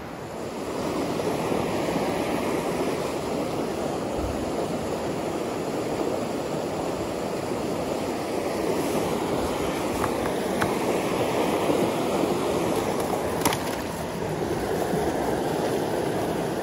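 Fast mountain river rushing over rocks, a steady rush of water that grows louder about half a second in. A sharp click sounds near the end.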